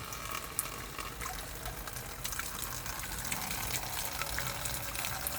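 Water running steadily, a hiss with small splashy ticks, getting a little louder about two seconds in.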